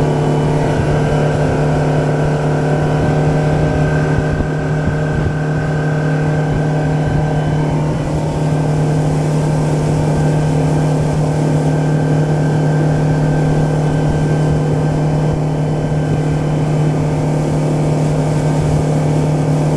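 A boat's outboard motor running steadily, its pitch holding constant throughout.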